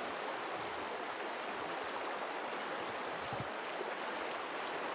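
Steady rushing of river water, an even hiss with no rhythm or breaks.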